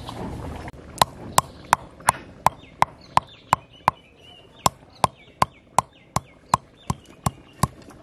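A stone roller used as a pestle strikes a flat stone grinding slab (sil-nora), crushing dry whole garam masala spices. The sharp, even knocks start about a second in and come about three a second, with a short break just before the middle.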